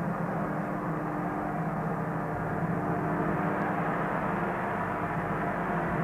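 Large stage gong sounding on in a steady, dense drone of many tones, with no fresh strike.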